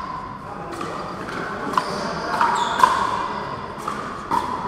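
Pickleball rally: a string of sharp pops, about six, as paddles strike the hard plastic ball and it bounces on the court, each ringing briefly in a large echoing hall.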